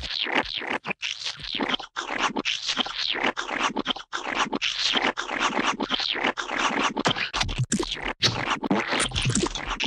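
Gooey splat sound effects: a dense, continuous run of short wet, slimy squelches and splats, following one another with brief sharp gaps.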